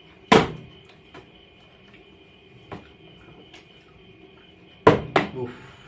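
Part-filled plastic water bottle flipped and landing on a tiled floor: one sharp knock about a third of a second in, then near the end another sharp knock followed closely by a second, smaller one.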